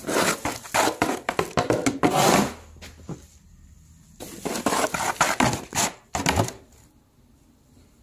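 Plastic scoop scraping into a heap of dry, coarse cattle feed and pouring it out, the feed rattling down as the feed is mixed. Two bouts of quick scraping and pouring: one over the first two and a half seconds, another starting about four seconds in.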